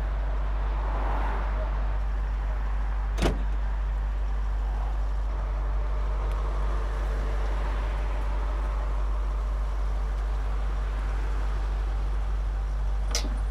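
Steady low rumble of highway traffic, with a car door slammed shut once about three seconds in. Near the end come two short metallic clicks from the chain on a fence gate being handled.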